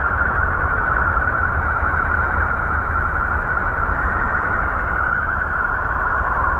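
A planet's radio emissions recorded by a spacecraft and turned into sound: a steady hiss with a whistling band of tone that sinks slightly in pitch near the end, over a low rumble.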